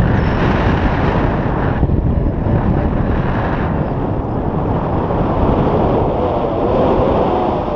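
Airflow in flight buffeting the microphone of an action camera held out on a selfie stick under a tandem paraglider: loud, steady wind noise.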